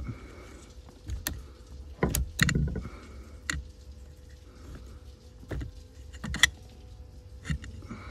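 Scattered sharp clicks and knocks of a screwdriver and fingers prying at the gearshift cable ends on a Daewoo Matiz's gearbox shift linkage, about eight to ten in all, the loudest about two and a half and six and a half seconds in.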